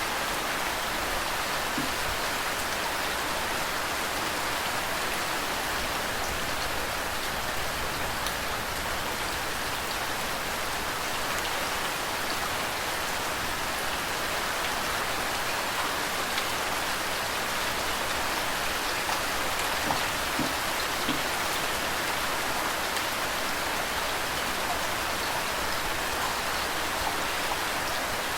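Steady rain falling, with flowing water beneath it and a few louder drips now and then.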